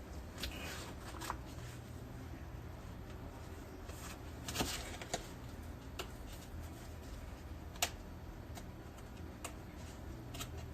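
Small handling noises: a few scattered light clicks and taps over a steady low hum.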